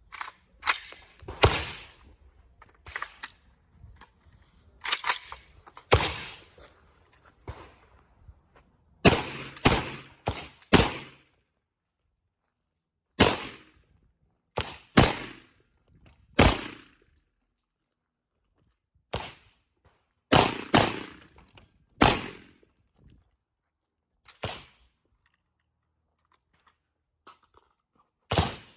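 Gunfire: about two dozen sharp shots, some single and some in quick strings of two to four, with pauses of one to three seconds between strings and a longer gap before a last shot near the end.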